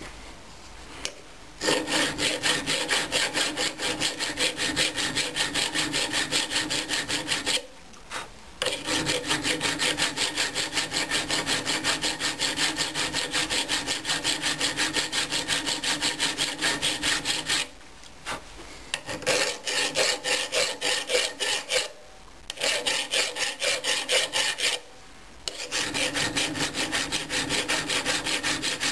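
A hand file rasping along the edge of an old steel Gilpin axe head clamped in a vice, in quick repeated strokes, smoothing off rough, pitted edges. The filing starts about two seconds in and runs in spells broken by four short pauses.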